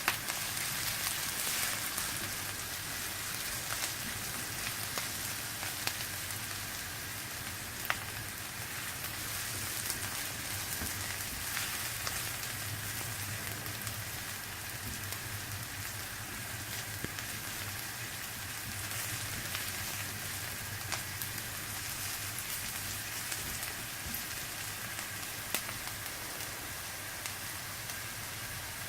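Stir-fry sizzling in hot oil in a skillet, a steady hiss with a few sharp clicks of the spatula against the pan.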